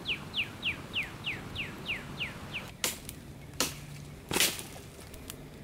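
A songbird sings a fast series of falling notes, about three a second, that stops about two and a half seconds in. Then come three sharp snaps of dead sticks and branches, about a second apart; the last is the loudest.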